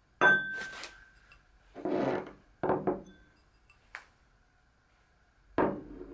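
White speckled ceramic bowls being handled: a bright, ringing clink as one bowl is lifted off another, then a short scrape and a few knocks as the bowls are set down on a hard tabletop.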